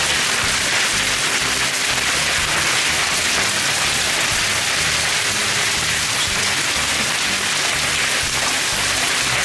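Hailstorm: hailstones and heavy rain pelting down on the ground and the shelter roof in a dense, steady hiss.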